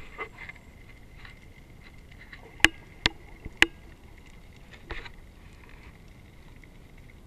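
Underwater recording: a low, muffled water noise with a faint steady high tone. Three sharp clicks come about half a second apart near the middle, and a softer knock follows about a second later.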